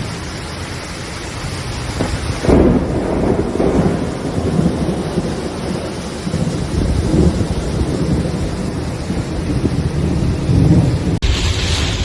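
Thunder in a rainstorm: rain hissing, then a loud rolling peal breaking in about two and a half seconds in and rumbling on in swells.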